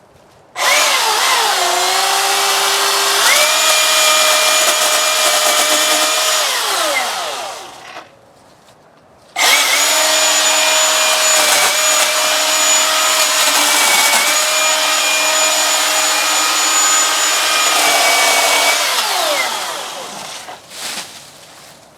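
Milwaukee M18 cordless chainsaw running in two long bursts of several seconds each, its motor and chain giving a steady whine while cutting wood. The pitch sags as the chain bites and climbs again, and each burst winds down as the trigger is let go.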